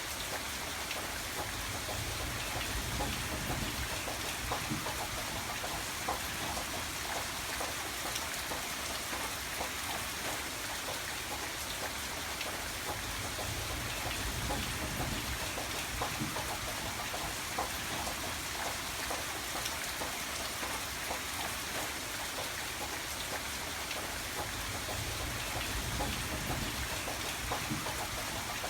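Steady rain falling: a dense, even hiss with many individual drops striking a surface. A low rumble swells and fades three times.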